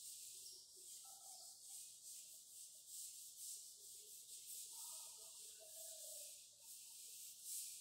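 Chalkboard duster rubbing across a chalkboard, wiping off chalk: a faint scraping hiss that comes and goes in repeated strokes.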